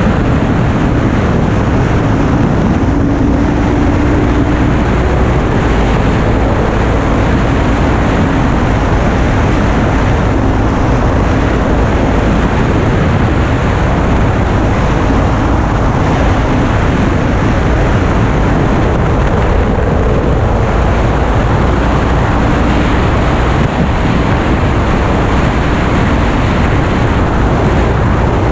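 Steady rush of wind over a helmet-mounted camera at riding speed, with the Kawasaki Ninja 300's parallel-twin engine heard under it, its pitch rising and shifting as the rider accelerates and changes gear.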